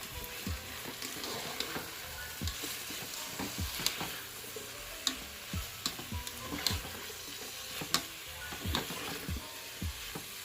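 Chicken, onions and peppers sizzling in oil in a rice cooker pot while a utensil stirs them, with a steady hiss and irregular clicks and scrapes against the pot.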